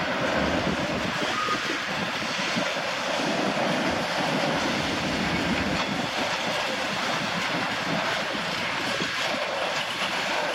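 Freight train passing, its wagons rolling steadily over the rails with a few faint clicks from the wheels.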